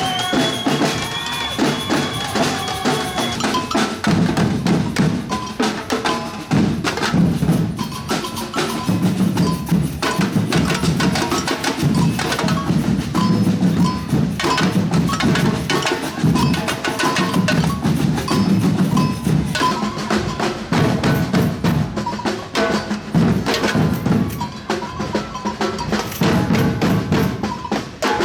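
Batucada drum ensemble playing a dense, driving samba rhythm: deep bass drums under snare drums, with high bell-like and wood-block-like strikes on top. A held high tone sounds over the drums for the first three seconds or so.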